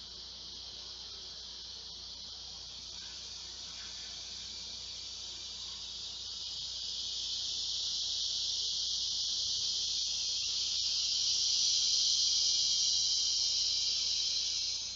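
A large male cicada calling for a mate: a steady, high, shrill buzz that swells through the second half and cuts off sharply near the end.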